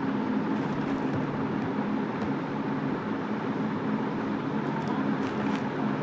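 Steady low hum, as of a small motor or appliance running, with a few faint clicks about half a second in and again near the end.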